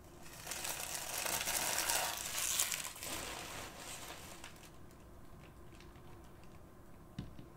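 Plastic wrapping crinkling and tearing, as a trading-card blaster box is unwrapped, for about three seconds. This is followed by quieter handling sounds and a single click near the end.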